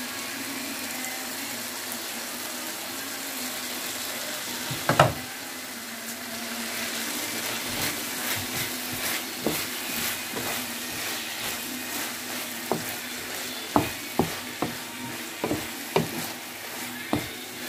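Chicken and vegetable stir-fry sizzling in a frying pan, with one loud knock about five seconds in. From about halfway, the food is stirred and tossed, and a utensil clacks against the pan many times over the sizzle.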